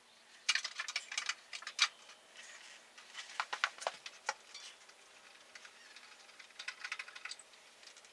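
Small metallic clicks and rattles in three quick clusters, from hands working on a motorcycle's drive chain.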